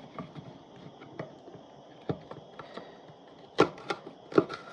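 Celery being cut and handled on a cutting board: scattered light taps and clicks, with three louder knocks near the end.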